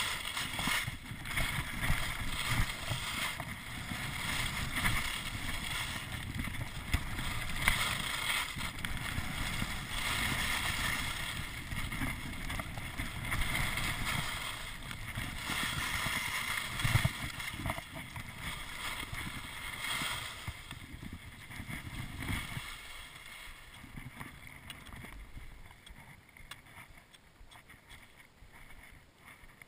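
Wind rumbling on the microphone of a camera worn by a downhill skier, over the hiss and scrape of skis turning on packed snow. Both grow quieter about three-quarters of the way through as the skier slows.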